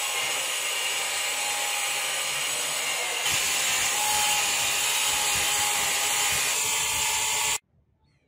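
Bench grinder running with a buffing wheel while a steel sword blade is pressed against it and polished. It makes a steady, high hissing whine that gets louder about three seconds in, then stops abruptly near the end.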